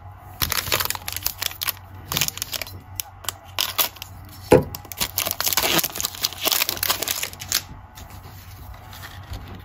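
Wrapper of a Panini Mosaic trading card pack crinkling and tearing open, a dense run of crackles that thins out about eight seconds in as the cards come out.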